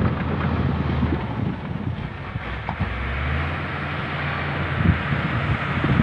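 LiuGong crawler bulldozer's diesel engine running steadily, with irregular clanking from the machine as it works.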